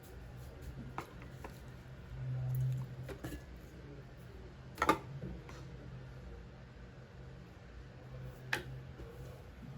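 Room tone with a low steady hum and a few scattered light clicks and knocks, the loudest about five seconds in and another near the end.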